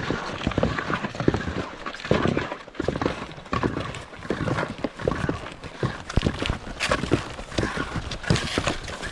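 Ski-touring steps on snow: skis with climbing skins sliding and crunching forward and pole tips planting, a few knocks a second in an uneven rhythm.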